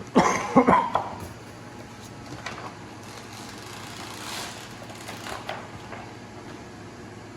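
Squeegee strokes sliding over perforated window vinyl on the glass: a loud cluster of strokes in the first second, then a few fainter swipes.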